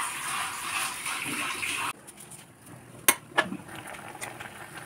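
A steady watery rush for about two seconds that cuts off abruptly, then two sharp knocks about a third of a second apart over the fainter bubbling of curry boiling in a steel kadai.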